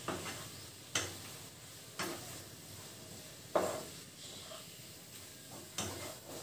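A spatula stirring soya chunks in tomato masala in a non-stick frying pan, with a few sharp knocks against the pan at irregular intervals over a faint sizzle of frying.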